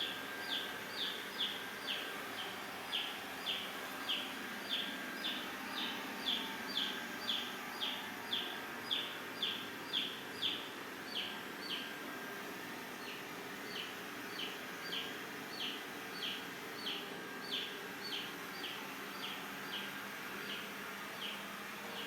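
Xiaomi S20+ robot vacuum running with a steady whir. Over it, a short, high, falling chirp repeats about twice a second and pauses briefly about halfway through.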